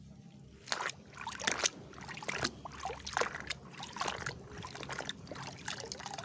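Water sloshing and splashing as a toy vehicle is washed by hand, in irregular splashes.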